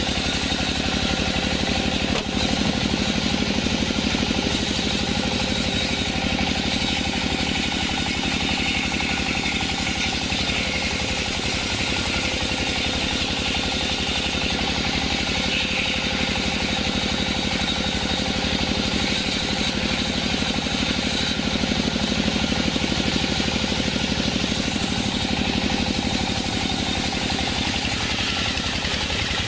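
Band sawmill machinery running steadily, a constant motor hum with a continuous hiss over it.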